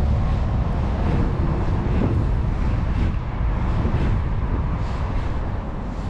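Wind buffeting the microphone in a steady low rumble, over the wash of choppy sea water.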